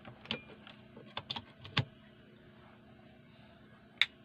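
A few sharp clicks and light taps over a faint steady hum, the loudest click near the end: an opened radio-cassette being handled and switched as it is tested.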